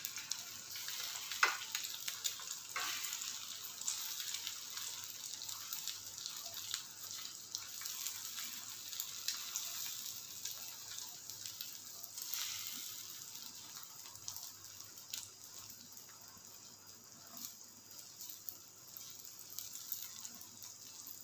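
Beaten egg with chopped onion sizzling in hot oil on a flat griddle pan (tawa), a steady hiss that eases off a little in the second half. Now and then a metal spoon clicks and scrapes against the pan as it spreads the egg.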